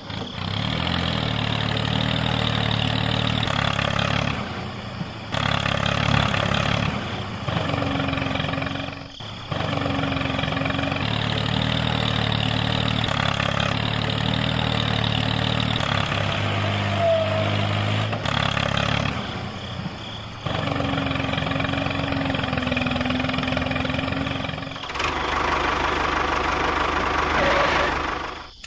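Tractor engine running steadily at a low idle-like hum, the sound changing abruptly several times through the stretch.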